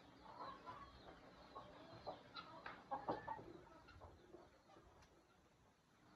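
Chickens clucking faintly in the background, with short scattered clucks.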